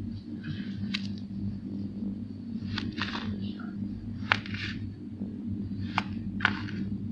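Kinetic sand being handled: short, soft crunching and crumbling strokes with sharp clicks, about one every second or so, over a steady low hum.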